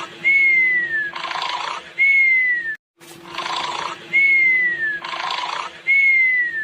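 Cartoon snoring sound effect: a rough snore on each in-breath followed by a falling whistle on the out-breath, about one cycle every two seconds, four whistles in all. It cuts out for a moment nearly three seconds in and the same pattern starts over, with a steady low tone underneath.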